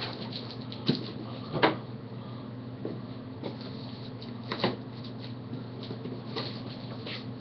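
Large cardboard shipping box being handled and shifted against a wall: a few sharp knocks and bumps, the loudest about a second and a half in and again near four and a half seconds, over a steady low hum.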